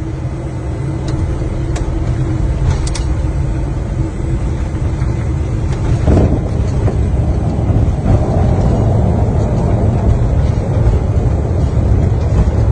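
Jet aircraft's landing rollout heard from inside the cockpit: a loud, steady low rumble of the wheels on the runway and the engines, swelling about six seconds in. A few light clicks in the first three seconds.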